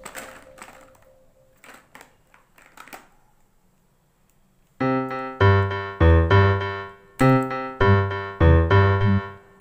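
Background music: a few faint clicks, a short silence, then a keyboard tune with a bass line starts about halfway through and runs on in a steady beat.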